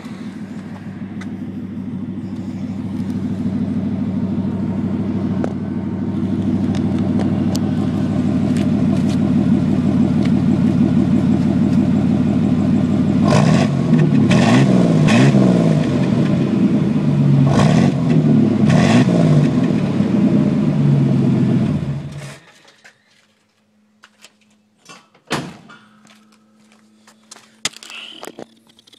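1991 Chevy S-10 Blazer engine with a Flowmaster exhaust idling, growing louder over the first several seconds, then revved about five times, each rev rising and falling. The engine shuts off suddenly about 22 seconds in, leaving a few knocks and clicks.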